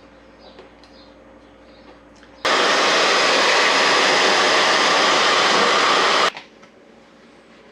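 A hand-held hot-air blower running steadily for about four seconds, switched on about two and a half seconds in and cut off abruptly; it is used to soften the adhesive graphics being laid onto the dirt bike.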